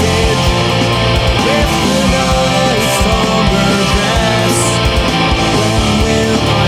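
Loud death metal music: distorted guitars over bass and drums, with some pitch-bending notes in the lead line.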